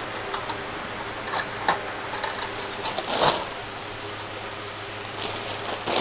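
Light clicks and rustling as items are handled inside a wire bird cage, a few short knocks and a longer rustle, over a steady low hum.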